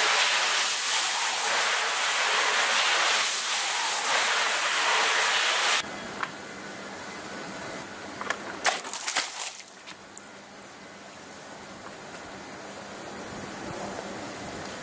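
Water jets spraying hard onto a digital door lock in a spray-test booth, a loud steady hiss that cuts off abruptly about six seconds in. After it a much quieter steady background remains, with a few brief clicks a little past the middle.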